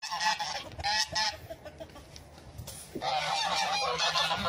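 Flock of white domestic geese honking: a few honks in the first second or so, then many overlapping honks from about three seconds in.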